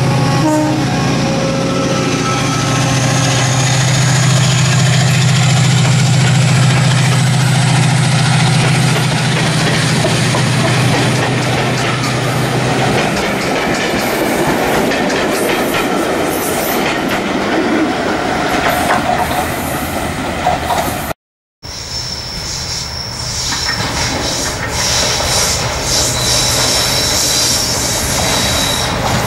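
A Class 68 diesel-electric locomotive runs past hauling coaches, its engine a steady low drone with a high whine rising over the first several seconds. Coaches then roll by with a rumbling clatter on the rails. After a cut, a Class 37 diesel locomotive approaches, with a low engine drone under high, steady squealing tones.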